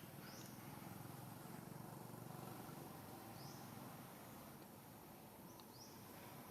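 Near silence with a low background hum, broken by a few faint, short, high rising chirps from an animal: one about half a second in, one a little past the middle and one near the end.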